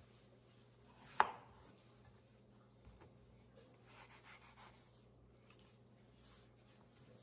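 Chef's knife cutting a peeled apple on a bamboo cutting board: one sharp knock on the board about a second in, then quieter cuts through the apple around four seconds in.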